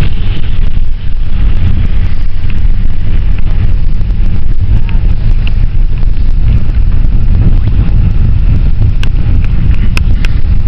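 Passenger van's cabin rumble while driving: loud, steady low-pitched engine and road noise, with a few sharp clicks or rattles near the end.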